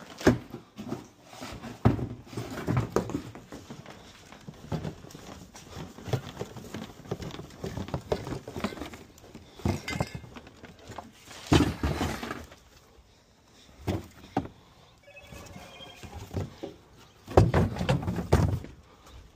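Knocks, rustling and footsteps as junk is handled and carried out by hand. Near the end comes a loud clatter as a rubber boot tray is tossed onto the junk in a truck bed.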